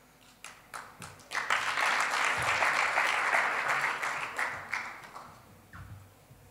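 Audience applauding: a few scattered claps, then a burst of applause starting about a second in that dies away after about four seconds.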